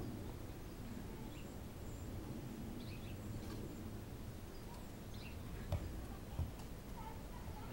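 Quiet outdoor background with a few faint bird chirps, and two dull thumps about six seconds in, under a second apart, from a spade digging into garden soil.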